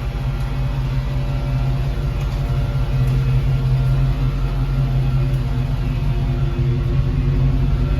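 Dodge Challenger Scat Pack's 6.4-litre HEMI V8 running steadily at low revs, a constant low hum.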